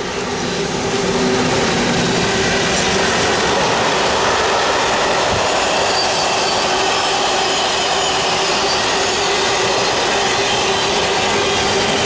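Electric freight train passing close by, led by SNCF BB26000 and BB27000 locomotives, with its wagons rolling past on the rails. The sound swells over the first second as the locomotives go by, then holds steady, with a steady tone running through it.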